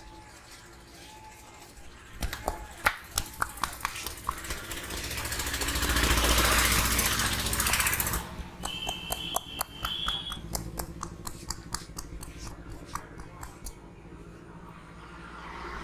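Quick runs of sharp hand slaps from a head massage, about five a second, in two bursts. Between them a loud rushing noise swells and fades.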